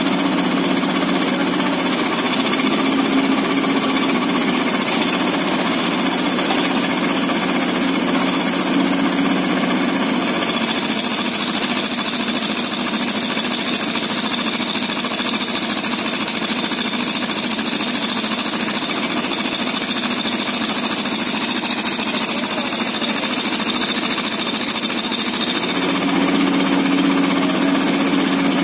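Hitachi mini excavator's diesel engine running with a steady, dense clatter while the machine is worked onto a truck. Its low hum is stronger for the first third, eases through the middle, and comes up again near the end.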